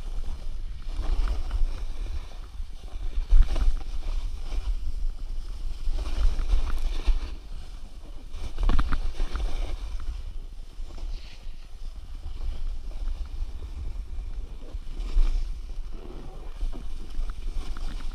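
Snowboard sliding and turning through powder snow: a continuous rushing hiss of snow under the board, with wind buffeting the microphone as a low rumble. A few louder thumps come as the board hits bumps.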